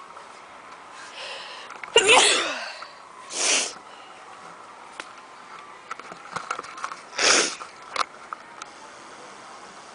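A person sneezing: one loud voiced sneeze with a falling pitch about two seconds in, then sharp breathy bursts and sniffs, the loudest of them about seven seconds in.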